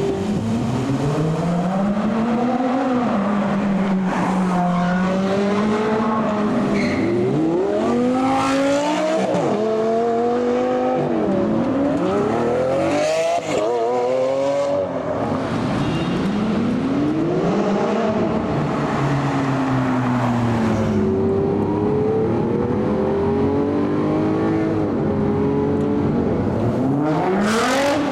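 Supercar engines revving and accelerating hard, their note climbing and dropping again and again.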